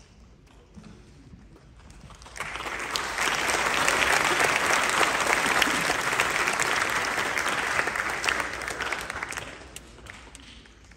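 Audience applauding, starting about two seconds in and fading out near the end.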